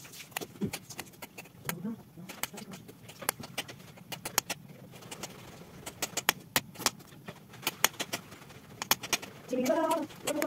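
Kitchen knife slicing raw potatoes, giving sharp irregular clicks as the blade goes through and strikes the counter. Near the end a short low coo, like a pigeon's, is heard.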